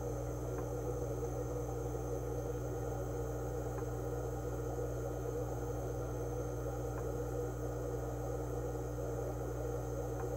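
Steady low hum of running aquarium equipment, with a faint tick about every three seconds.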